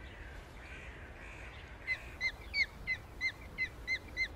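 Osprey calling: a run of about eight short, high, clear chirps at about three a second, starting some two seconds in.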